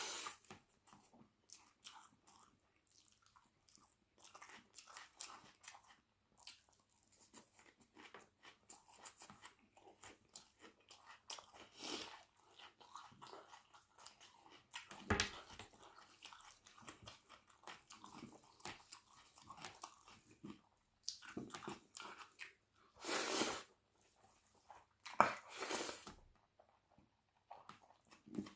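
Close-miked chewing and biting of food, with irregular wet smacking chews and crunchy bites, and a few louder bursts, one about halfway and two near the end.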